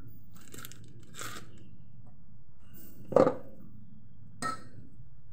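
Hands folding dimsum wrappers around filling: soft rustles of the wrapper, then a sharp knock about three seconds in and a lighter click a second later, over a steady low hum.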